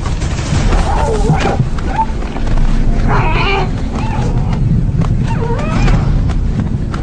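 A lioness grappling a zebra: low growling and scuffling, with short, wavering cries about a second in, around three seconds and near six seconds.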